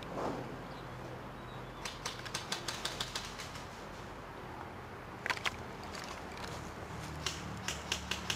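Airsoft guns firing: a quick string of sharp snapping shots, then a pair, then a few more near the end.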